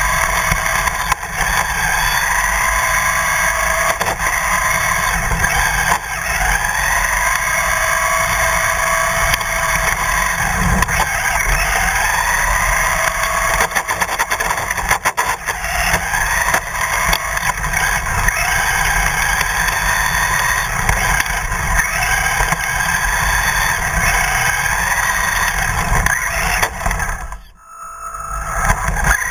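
Remote-control car driving fast on asphalt, heard from a camera on its body. Its motor note rises and falls in pitch as it speeds up and slows, over a steady rumble of the tyres on the road. The sound drops away briefly near the end.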